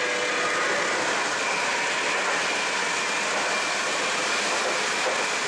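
O gauge model trains running on a layout: a steady, even whir and rush of wheels on the track and motors, with faint steady tones and no distinct clicks.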